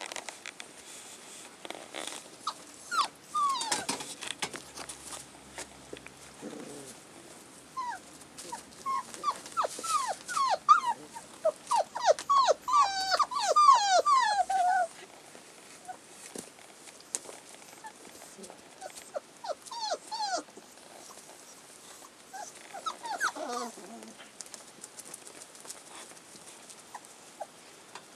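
Five-week-old collie puppies yelping and squealing as they wrestle in play: many short, high calls that drop in pitch. They come in bursts, densest and loudest in the middle, with a few more later on.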